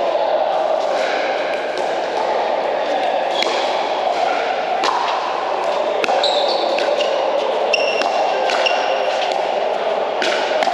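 Pickleball paddles popping against the hard plastic ball in a doubles rally, a sharp hit every second or so, with a few short high squeaks in the middle, over a steady background hum.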